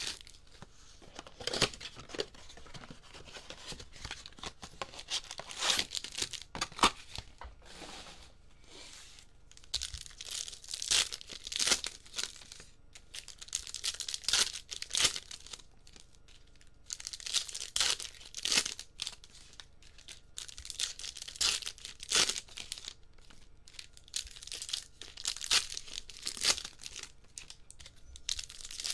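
Wrappers of 2022 Bowman baseball card packs being torn open and crinkled by hand, in bursts of tearing and crackling a few seconds apart.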